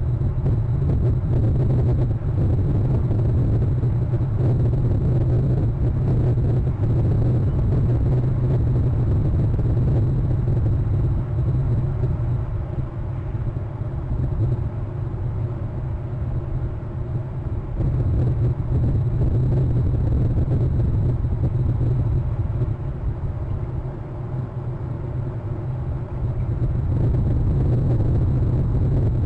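Steady low rumble, easing off a little around the middle and again near the end, with a thin faint high whine above it.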